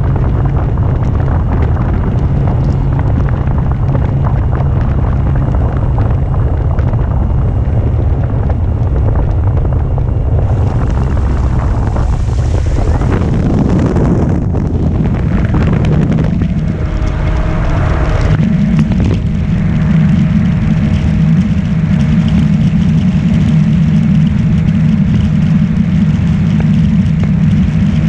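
Heavy wind rumble on the microphone over the electric motor of a Carbon-Z Cessna 150 model airplane in flight. The motor's hum changes about halfway through, then holds a steadier tone.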